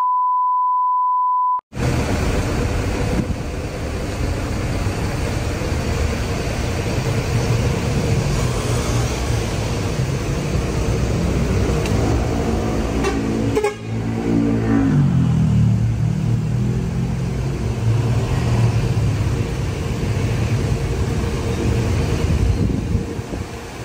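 A steady test-pattern beep for the first second and a half, then a tour bus's diesel engine running as the bus moves about the yard, its engine pitch rising and falling around the middle.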